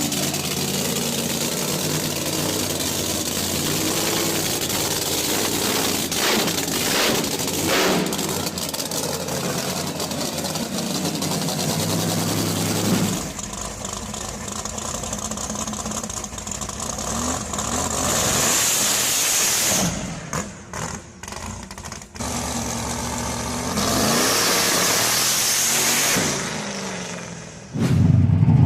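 Muscle car engine idling and revving in several short cuts, the sound changing abruptly between them; a loud, deep engine note comes in near the end.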